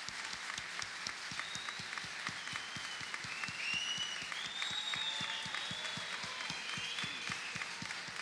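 Audience applauding steadily, with a few high rising and falling calls over the clapping around the middle.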